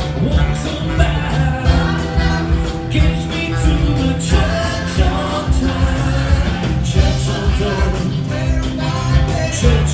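Live rock band playing with a steady beat, with singing.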